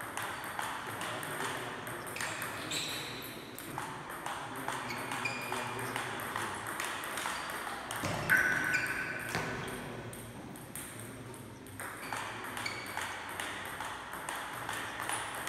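Table tennis rally: the ball clicking off the bats and bouncing on the table in quick, quickly repeating ticks, with a brief lull between points near the end. The loudest sound is one short high squeak about eight seconds in.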